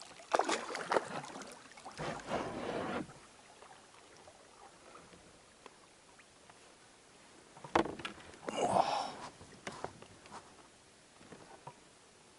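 Canoe paddle strokes: water swishing off the blade, with sharp knocks of the paddle against the canoe. They come in two bunches, over the first three seconds and again around eight to nine seconds in, with calm water between.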